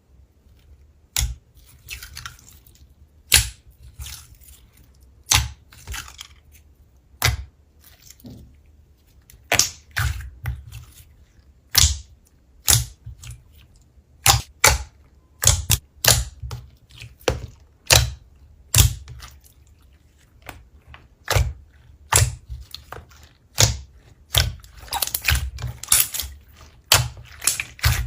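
Slime being pressed and played with, making sharp wet pops and clicks at an uneven pace, one to three a second, with short crackly clusters near the end.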